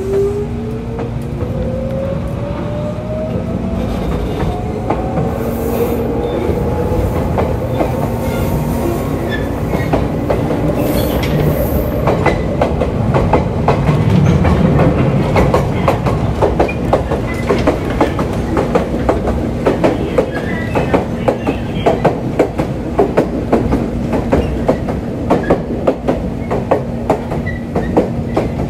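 Ex-Keio commuter train car (built 1964) pulling away and gathering speed, its traction motors giving a whine that rises in pitch over the first several seconds over a steady hum. From about halfway through it runs at speed with a regular clickety-clack of wheels over rail joints.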